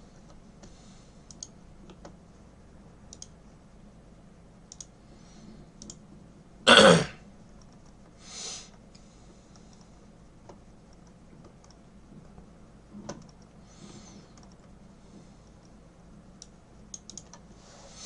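A man's single loud cough close to the microphone, about seven seconds in, with faint scattered clicks and two softer hissing sounds later.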